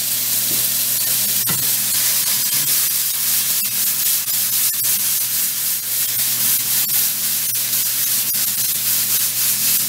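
Cauliflower and mushrooms frying in oil in a non-stick pan: a steady sizzling hiss with scattered sharp pops as the pan is tossed.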